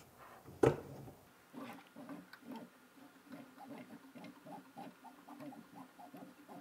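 The Z-axis lead screws and carriage of a Prusa i3 MK2 3D printer with the Bear frame upgrade, turned by hand to lower the X axis. A single knock comes about half a second in, followed by a run of small scratchy ticks and squeaks, about three or four a second. The axis is uneven, so the right side takes slightly more effort to turn.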